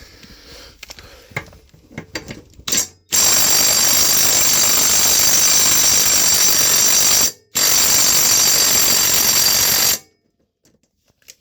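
3/8-inch impact gun hammering on a mower blade bolt in two long bursts, about four seconds and then two and a half, after a brief blip. The bolt is rusted on and does not come loose.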